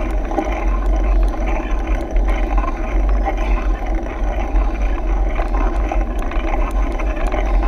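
Wind buffeting the microphone of a handlebar-mounted action camera while a mountain bike rolls along a paved road, a steady, gusting rumble over the hum and rattle of the tyres and bike.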